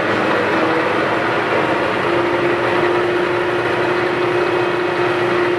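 Monarch K16 engine lathe running at its top spindle speed of 1200 RPM: a loud, steady mechanical whir through the headstock, with a steady tone setting in about two seconds in.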